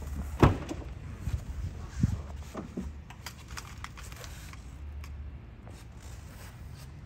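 Infiniti Q60 coupe's door being unlatched and opened: a sharp click about half a second in, the loudest sound, then a knock about two seconds in and a few lighter ticks, over a low steady hum.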